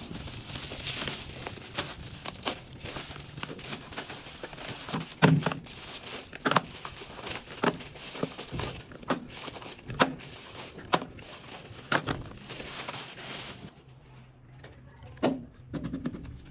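Plastic bubble wrap crinkling and rustling as it is pulled open by hand, with sharp taps about once a second as small cardboard product boxes are set down on a table. Near the end the crinkling stops and one more tap follows.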